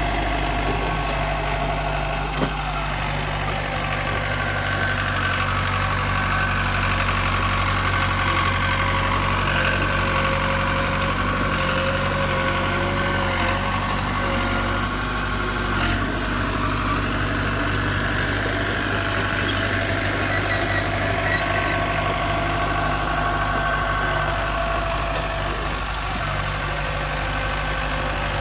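Heavy diesel engine of earthmoving machinery running steadily, near idle.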